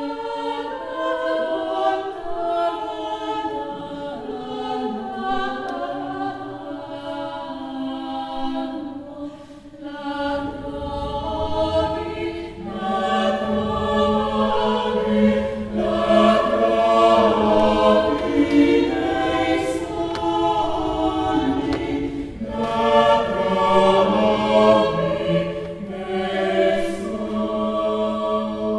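Small mixed choir of men's and women's voices singing a slow choral piece in several parts. About a third of the way through the singing swells fuller and louder, with a low note held underneath.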